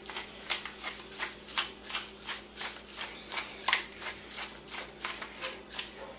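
Hand-twisted pepper grinder grinding peppercorns: a steady rhythm of short gritty crunches, about three a second.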